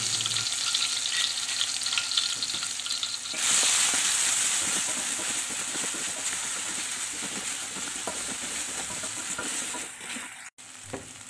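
Blended spice paste sizzling in hot oil in a wok, stirred and scraped with a spatula as it is sautéed until fragrant. The sizzle grows louder about three seconds in and dies down near the end.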